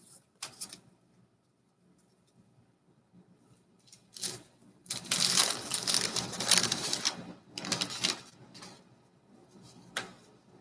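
Crinkling of a baseball card pack's wrapper and cards being handled and shuffled: a few brief rustles, then a longer, louder stretch of crinkling about four to seven seconds in, another short burst and a sharp click near the end.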